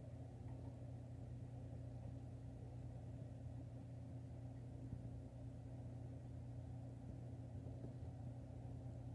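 Low steady hum with faint background hiss: room tone.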